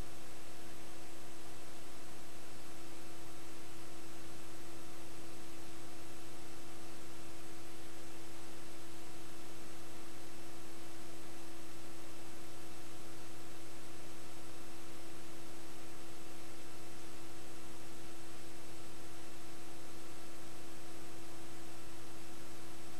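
Steady hiss with a constant electrical hum and a few faint steady tones, unchanging throughout: an empty audio track that carries only noise, with no game sound.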